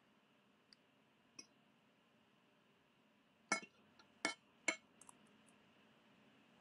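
Spoon clinking against a glass dish while eating: a couple of faint taps, then three sharp clinks in quick succession a little past the middle.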